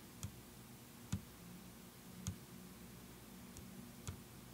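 Fingertips tapping the touchscreen of a Kenwood video head unit: about five faint, sharp taps at uneven intervals, over a faint steady hum.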